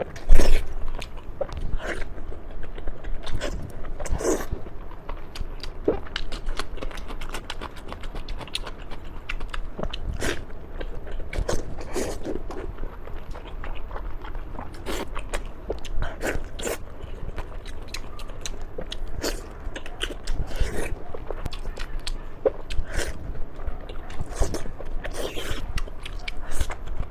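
Close-miked eating: steamed pork with sesame seeds being bitten and chewed, with wet mouth smacks and small crunches coming irregularly throughout. The loudest one comes about half a second in.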